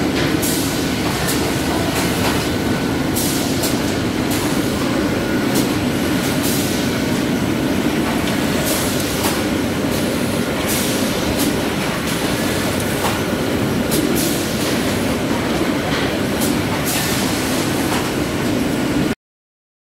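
GHD Hartmann AUTOMAT PP 30 pillow packaging machine running: a loud, steady mechanical hum from its drives and mesh conveyor belts with a thin steady whine over it, and short sharp bursts of noise every second or two. The sound cuts off abruptly near the end.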